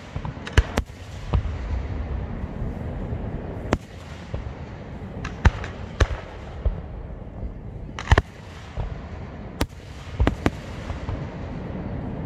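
Aerial fireworks display: about a dozen sharp bangs and cracks of bursting shells at uneven intervals, several in quick pairs, over a steady low rumble.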